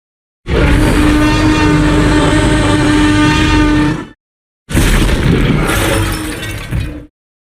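Film Tyrannosaurus rex roar sound effects: a long roar holding one steady pitch for about three and a half seconds, then after a short gap a second, shorter and rougher roar that tapers off.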